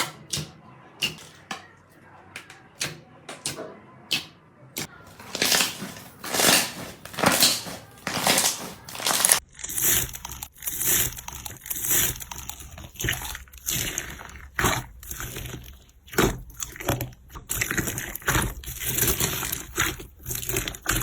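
Slime worked by hand, with crackly clicks at first, then wet squishing and squeezing strokes several times a second from about five seconds in. The sound shifts near the middle as another slime is handled.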